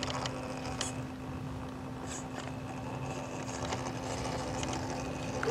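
Electric motor and gearbox of an Axial SCX10 III RC crawler running at a steady crawl, with a constant hum and a few small crackles of dirt and pebbles under the tyres.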